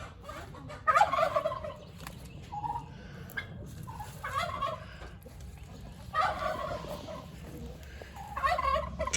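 Turkey gobbling, four loud gobbles about two seconds apart, with softer calls between them.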